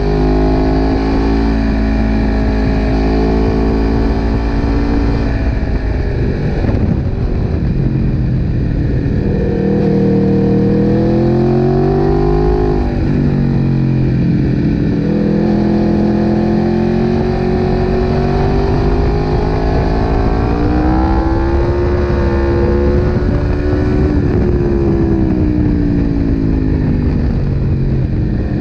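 Sport motorcycle engine at full racing revs, heard from on board, its pitch climbing through the gears and dropping sharply under braking several times before it climbs again.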